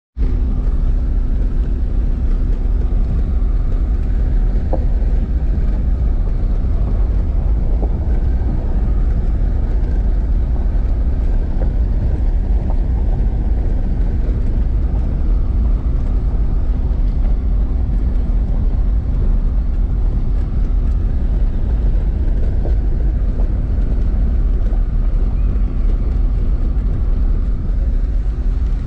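Car engine running steadily with tyre rumble on a dirt road, heard from inside the cabin while driving slowly: a constant low rumble under a steady hum.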